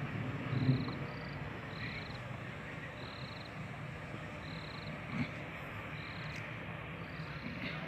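A small animal calling: short, high-pitched trilled chirps repeating about once a second over steady background noise.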